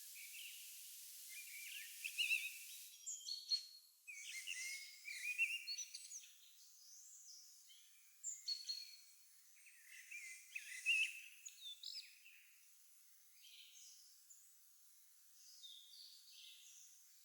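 Wild songbirds singing, with many overlapping short chirps and trills, busiest in the first twelve seconds and thinning towards the end. A faint hiss stops abruptly about three seconds in.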